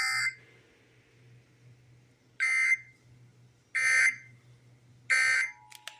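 Three short bursts of Emergency Alert System digital data tones, a harsh buzzing warble, evenly spaced about 1.3 seconds apart; their shortness and number fit the end-of-message code that closes an EAS test. Right after the third burst a faint steady two-tone signal begins, with a couple of light clicks near the end.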